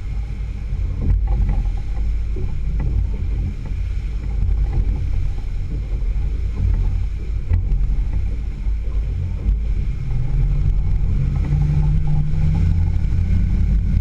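Outboard motor driving a small fishing boat under way, a steady low rough rumble with water rushing past. About ten seconds in, a steady engine hum comes up over it and the sound gets a little louder.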